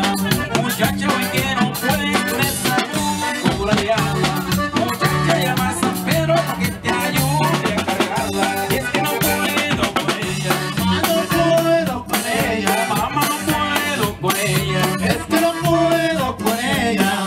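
Norteño-style dance music led by an accordion, with bass and a steady beat.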